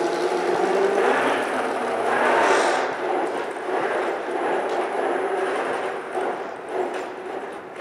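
FIRST Robotics Competition robot driving under its electric drive motors, its wheels rolling over carpet. The motor hum wavers in pitch as it moves.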